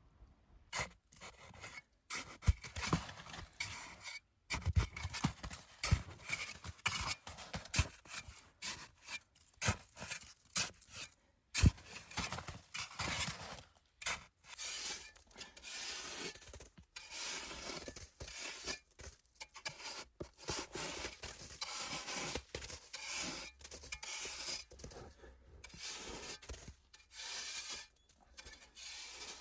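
Irregular scraping and rubbing strokes, one after another, with a few sharp knocks in the first half.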